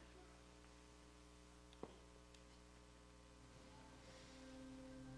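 Near silence with a steady electrical mains hum from the sound system and a single soft click about two seconds in. Near the end a faint held note starts to swell as the worship band begins.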